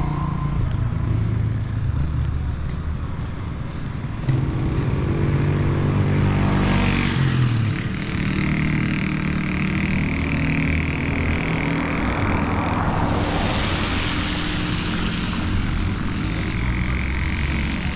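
A motor vehicle engine running steadily, its pitch rising briefly about seven seconds in, with a sudden step up in loudness about four seconds in.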